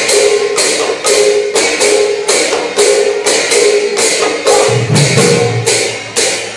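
Sattriya Gayan-Bayan ensemble: pairs of hand cymbals (taal) clashing in a steady rhythm about twice a second, over khol drums. Deep khol bass strokes come in about five seconds in.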